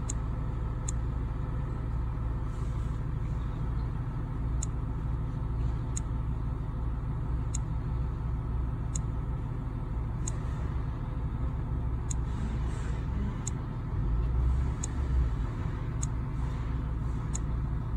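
A steady low mechanical hum with faint short ticks about every second and a half.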